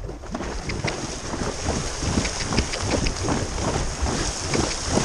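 A horse's hooves splashing through shallow water in repeated strokes as it crosses a cross-country water jump, with wind buffeting the helmet-mounted microphone.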